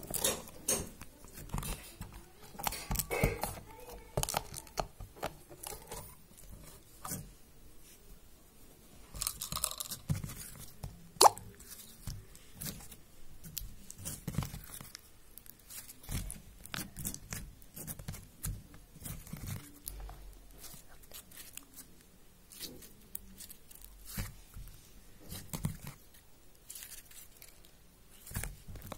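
Glitter slime being squeezed and kneaded by hand: a run of irregular small crackles, clicks and plops as it is pressed and pulled, with one sharper, louder click a little past eleven seconds in.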